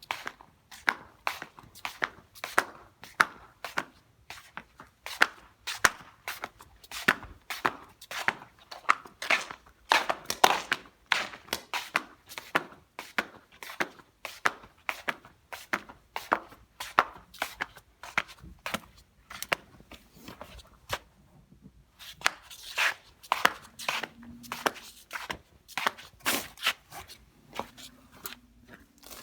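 Flip-flops slapping over and over in a quick, uneven run of sharp flops, pausing briefly about three quarters of the way through before starting again.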